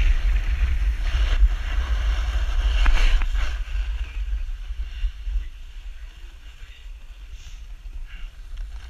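Wind noise on the camera's microphone and skis hissing over packed snow during a downhill run, with a brief click about three seconds in. It all eases off after about five seconds.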